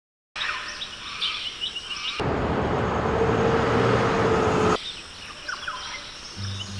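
Birds chirping in short repeated calls, cut off by about two and a half seconds of steady road noise heard from inside a moving car, with a low hum. Then the birds again, and music with low held notes comes in near the end.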